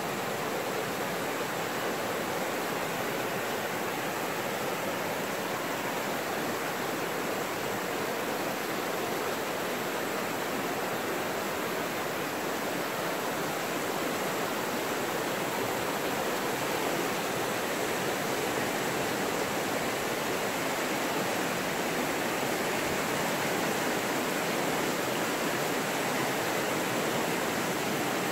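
River rapids rushing over moss-covered boulders: a steady, even roar of whitewater that grows a little louder toward the end.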